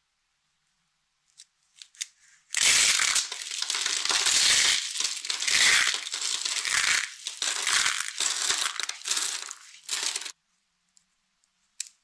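Dry, brittle soap curls crushed and crumbled between the fingers: a few small snaps, then from about two and a half seconds in a dense run of crunching and crackling that stops suddenly about ten seconds in, with one more snap near the end.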